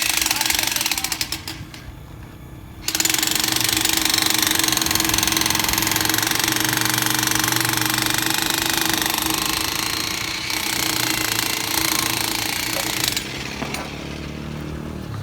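Jackhammer breaking up a set concrete column, hammering continuously at a rapid rate. It pauses about two seconds in, starts again a second later, and runs a little quieter in the last couple of seconds.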